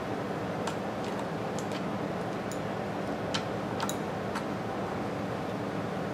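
Light metallic clicks and ticks, about eight of them at irregular intervals, as the cylinder-head bolts of a small Briggs & Stratton engine are worked loose and laid on the bench. A steady low hum underlies them.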